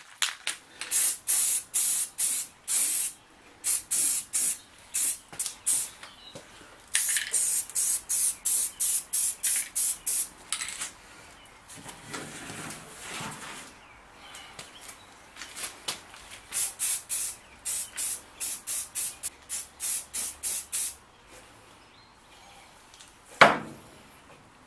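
Aerosol can of self-etching primer spraying in many short bursts of hiss, with a few brief pauses between runs. Near the end comes a single sharp knock, the loudest sound.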